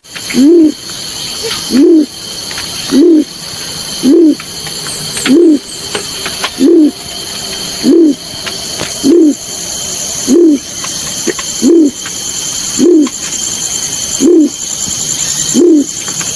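Bird call known as the balorinay: a single short, low hoot that rises and falls in pitch, repeated evenly about every second and a quarter, over a steady high-pitched hiss.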